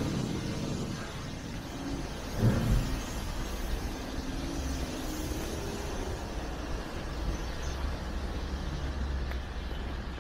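Road traffic on a city street: a steady rumble of passing cars, with a brief louder burst about two and a half seconds in.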